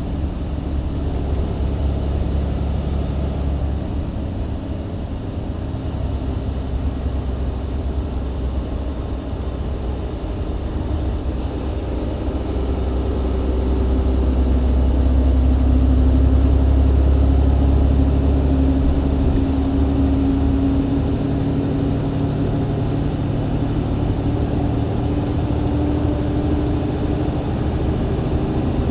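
Mercedes-Benz Citaro C2 LE hybrid bus with a Voith automatic gearbox driving on a country road, heard from inside. Its engine drone grows louder and rises slightly in pitch about halfway through as the bus pulls uphill under kickdown, then eases.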